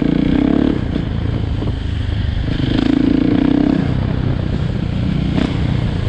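Husqvarna 701's single-cylinder four-stroke engine running through an Akrapovic slip-on exhaust with the dB killer removed, the note rising and falling twice as the throttle is opened and eased off under way.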